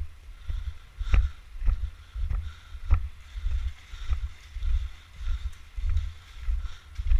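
Walking footsteps, about two a second, each a dull low thud, some with a light click or crunch on top.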